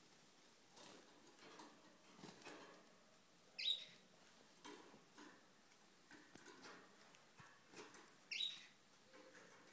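Pet canaries in a wire cage: two short, sharp chirps about four and a half seconds apart, over faint tapping and rustling as the birds hop and flutter about the cage.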